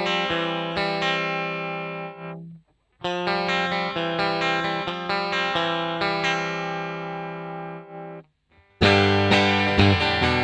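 Electric guitar played through a Fender amp, alternating with its Kemper profile: sustained chords ring out and decay. The playing breaks off briefly about two and a half seconds in and again about eight seconds in, and the last passage, from about nine seconds in, is louder and brighter.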